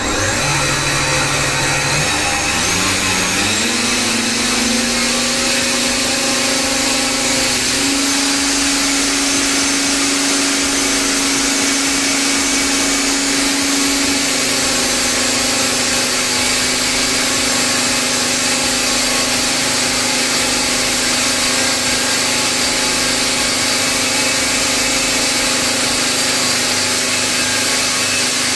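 Bosch GSH 11E breaker's motor, with a freshly replaced armature and needle bearing, running on the bench with no hammer mechanism fitted, while its speed governor is checked. Its whine climbs in pitch over the first few seconds, steps higher about eight seconds in, drops back slightly about fourteen seconds in, then runs steady. It is running smoothly, with no fault.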